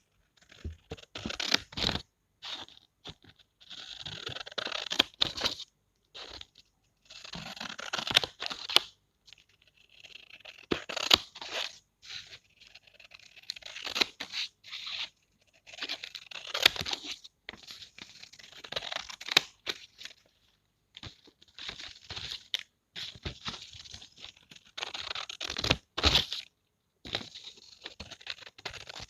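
Scissors cutting through paper: about ten runs of crisp snipping, each a second or two long with sharp blade clicks, with short pauses between them.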